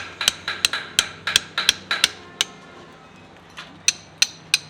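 Quick, repeated hammer blows with a ringing edge, about four a second, pausing for about a second midway and then resuming, during work on a tractor tire.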